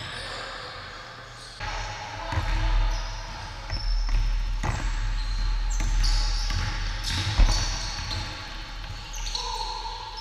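Basketball bouncing on a hardwood gym floor during a full-court game, with sneakers squeaking and players' footsteps, echoing in a large hall. Several sharp knocks, the loudest about seven seconds in.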